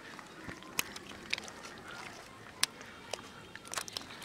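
Irregular small splashes and sharp clicks, a handful over a few seconds, over a faint hiss: small fish flapping in shallow, muddy rainwater runoff.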